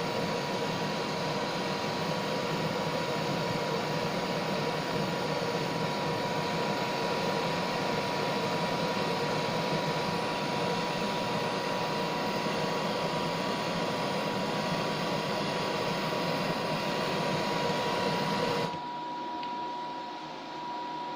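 Steady rushing noise from the heat source melting solder back down, with a steady hum in it. About nineteen seconds in it cuts off abruptly, leaving a quieter steady tone.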